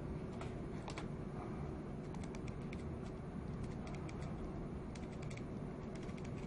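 Faint clicking of a computer mouse scroll wheel, in short irregular runs of ticks, over a low steady hum.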